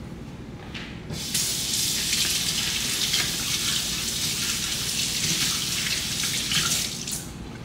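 Water running from a kitchen tap, turned on about a second in and shut off near the end.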